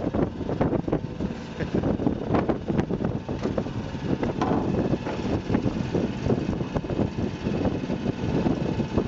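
Workboat's engine running steadily, with wind buffeting the microphone in irregular gusts.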